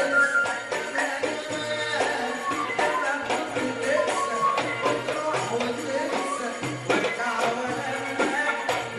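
Egyptian belly-dance music from a live band with a goblet drum (darbuka) and keyboard, with a steady percussion beat under a wavering melody.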